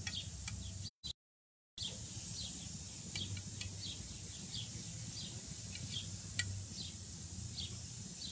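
Birds chirping: short falling chirps about twice a second, over a steady hiss. The sound cuts out completely for under a second near the start, and there is one sharp click about two-thirds of the way through.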